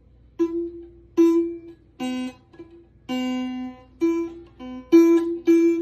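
Acoustic guitar strings plucked by a cat, about nine single notes at uneven intervals, each ringing out and fading.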